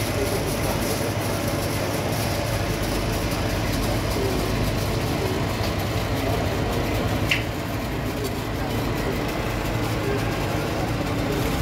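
Steady low mechanical hum, like an engine or motor running, under a constant background noise, with one short sharp click about seven seconds in.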